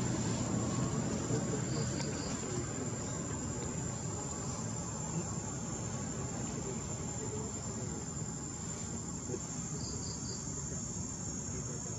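Insects calling in one steady, high-pitched tone. A short three-note chirp comes twice, about two seconds in and again near the end.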